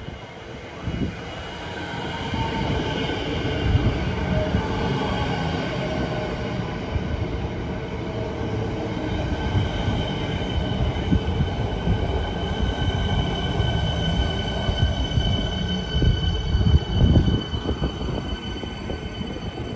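Siemens Nexas electric suburban train braking into a station platform and stopping, its traction motor whine falling in pitch over a rumble of wheels, with a squeal from the wheels or brakes. At a stand, a steady high hum from its onboard equipment carries on, with a louder rumble about three-quarters of the way in.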